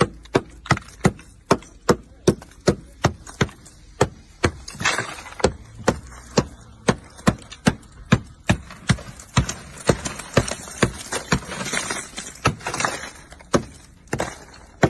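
Small hammer knocking a thick ice crust off a car's body, in quick repeated blows about two to three a second. Between some blows there is a noisier crunch of ice breaking away.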